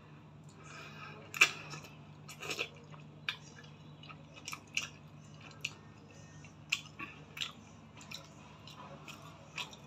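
A person chewing and slurping noodles, with scattered short wet mouth clicks and smacks, the sharpest about a second and a half in.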